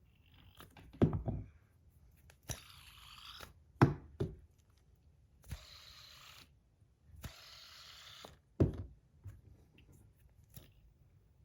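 A metal fidget spinner with tungsten buttons being handled: three sharp clicks, with three short hissing whirs in between, each about a second long.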